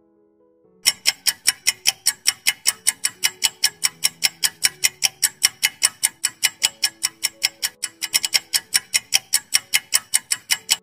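Clock-ticking sound effect for a quiz countdown timer: sharp, even ticks at about five a second, starting about a second in, over soft sustained background music notes.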